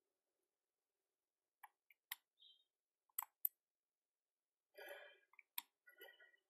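Near silence broken by a few sharp computer mouse clicks, two about two seconds in and two about three seconds in. Near the end there is a faint breathy murmur and another click.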